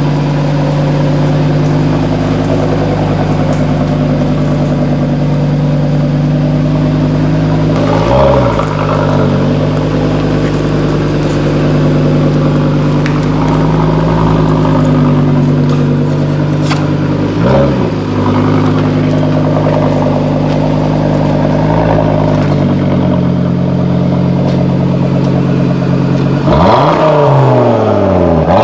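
Cupra Formentor VZ5's five-cylinder turbo petrol engine idling through an Akrapovič Evolution exhaust, given two short throttle blips about eight and seventeen seconds in. Near the end it is revved higher and the revs fall back.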